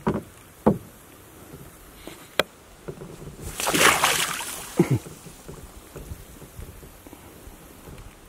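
A baby beaver splashing into the creek from the bank about four seconds in, a short burst of splashing. A few sharp knocks come before it.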